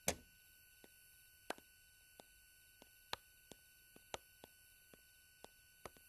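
A sharp knock at the start, then light footsteps on a wooden floor: about a dozen short clicks at an uneven pace, each roughly half a second apart.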